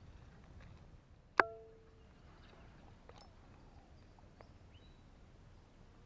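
A single sharp metallic click with a brief ringing about a second and a half in, the bail of a small spinning reel snapping shut after a cast.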